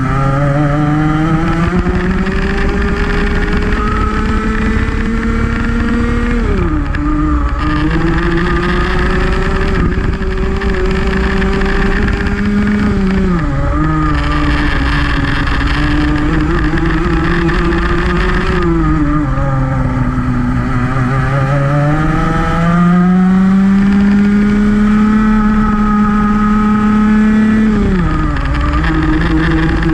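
Rotax Max 125cc single-cylinder two-stroke kart engine at race pace. Its pitch climbs slowly along each straight, then drops sharply as the kart slows for a corner, four times.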